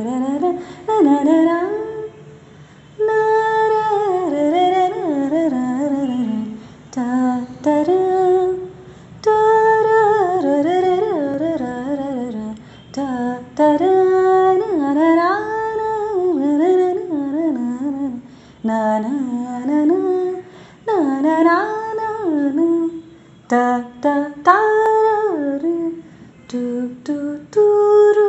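A single voice humming a wordless melody in phrases a second or two long with short breaks between them, sliding up and down between notes.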